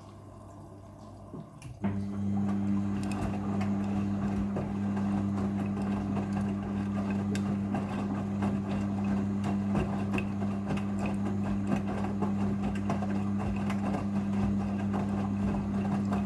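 Midea front-loading washing machine moving water during its rinse cycle: about two seconds in, a steady electric hum starts with water rushing under it, running at an even level until it stops at the end.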